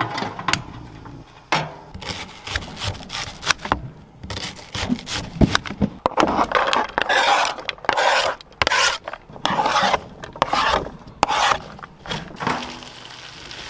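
Cutting board and spatula scraping against a frying pan as chopped onion and diced potatoes are scraped in and stirred: scattered knocks and clicks at first, then a run of short scraping strokes.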